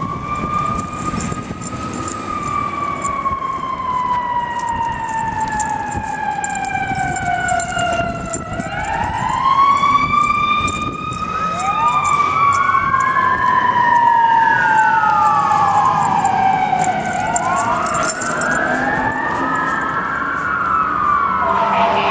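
Sirens wailing: each sweep climbs quickly and then slides slowly down over several seconds. From about halfway through, a second siren's sweeps overlap the first.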